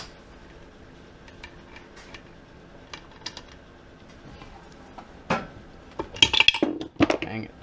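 Steel transmission gears and shafts clinking against a 2005 Suzuki RM-Z250's aluminium crankcase as they are handled and fitted. A few light clicks, then from about five seconds in a loud clatter of metal-on-metal clinks with a short ring.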